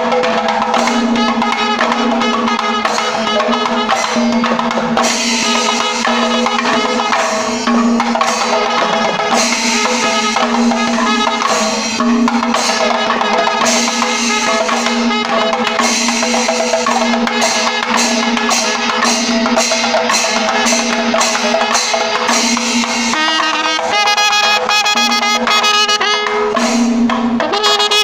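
A panchavadyam temple ensemble plays loudly: timila hourglass drums and a maddalam barrel drum beat a steady rhythm under a continuous metallic ringing. A brass horn comes in about four seconds before the end.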